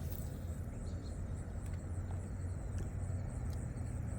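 Outdoor ambience: a steady low rumble, with a faint, evenly repeating high chirp like insects and a brief high hiss at the very start.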